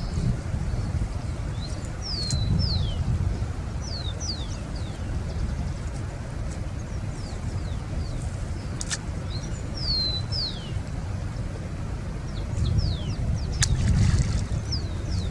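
Birds calling with short, repeated chirps that fall in pitch, over a low rumble of wind on the microphone. Two sharp clicks, one in the middle and one near the end.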